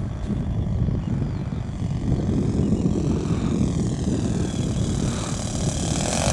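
Saito FA-62B four-stroke glow engine of a radio-controlled P-51B Mustang running in flight, its faint buzz sliding slowly up and down in pitch. Heavy wind rumbles on the microphone throughout and is the loudest sound.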